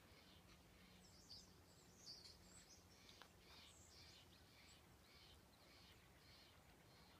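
Faint outdoor birds chirping, with a soft call repeating about twice a second and a few higher chirps in the first half.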